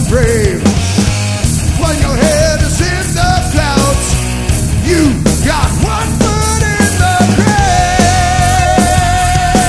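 Four-piece rock band (drums, bass, electric guitar) playing hard and fast, punk-style. Over it a lead line slides and bends in pitch, then settles into a long held note about three-quarters of the way through.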